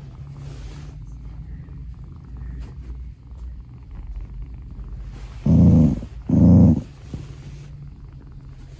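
A cat purring steadily close up, with two much louder half-second bursts of sound about five and a half and six and a half seconds in.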